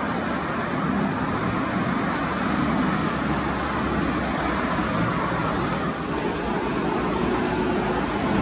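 Steady rushing roar of MiG-29 fighters' jet engines, with no single event standing out.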